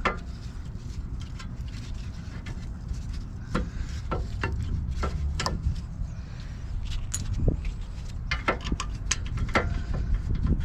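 Irregular metallic clinks and knocks of hand tools and brake parts being handled while reassembling a rear disc brake caliper, over a steady low rumble.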